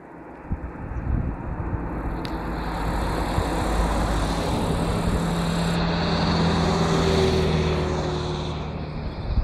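A motor vehicle passing on a road, its engine hum and tyre noise swelling over several seconds, loudest about seven seconds in, then easing away.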